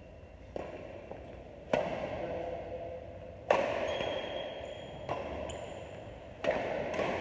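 Badminton rackets hitting a shuttlecock in a rally, sharp cracks every one to two seconds that ring on in a large hall. A few brief high squeaks from shoes on the court come in the middle.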